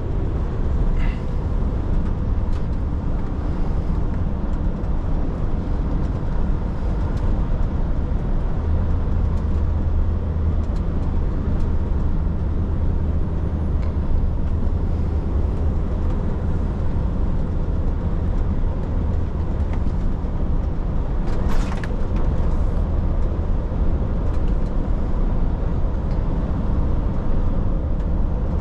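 Truck driving on the open road: steady low engine drone and road rumble, the drone deepening and growing stronger for several seconds in the middle. A brief sharp noise cuts in once about three-quarters of the way through.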